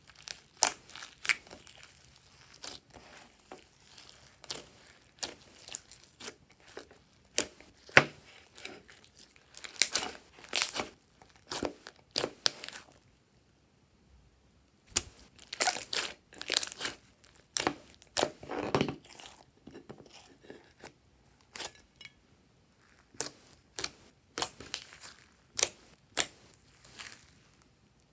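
Blue and white glossy slime with foam beads and glitter mixed in, stretched, folded and squeezed by hand. It gives irregular sticky pops, clicks and crackles in quick clusters, and goes quiet for about two seconds near the middle while it is pulled out in a long sheet.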